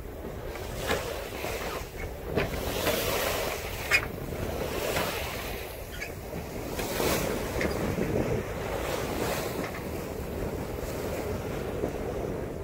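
Wind rushing over the microphone and water washing along the hull of a Hunter 356 sailboat under sail in strong wind, with a few sharper splashes or gusts standing out.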